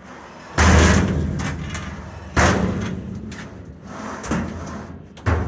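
Steel drawers of a Knaack 45 StorageMaster rolling toolbox workbench sliding on their rollers and banging shut: three loud strokes, each dying away over a second or so, and a lighter knock between the last two.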